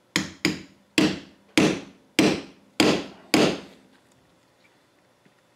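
Hammer blows on a steel bearing driver, seven sharp strikes each with a short metallic ring, driving a roller bearing into the valve (input shaft) housing of a Ford power steering box. The blows stop about four seconds in.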